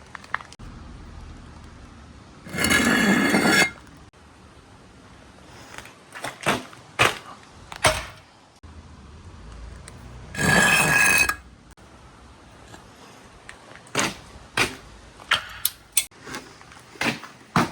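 Marbles rolling down a marble run: a low rolling rumble, two loud rattling runs about a second long, roughly seven seconds apart, and scattered sharp clacks as marbles drop and strike track pieces.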